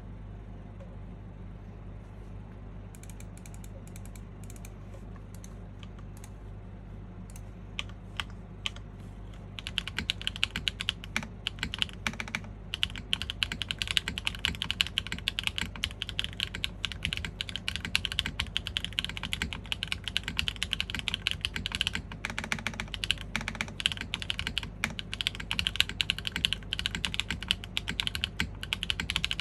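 Typing on a top-mount GAF 910 PC custom mechanical keyboard with factory-lubed Strawberry Wine V2 switches on an aluminium plate and GMK keycaps. A few scattered keystrokes start about three seconds in, and fast continuous typing follows from about a third of the way through.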